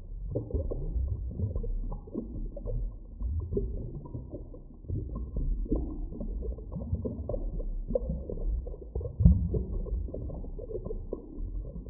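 Underwater drowning sound effect: heavily muffled, low rumbling water with irregular bubbling and gurgling, with no high sounds at all. A louder low surge comes about nine seconds in.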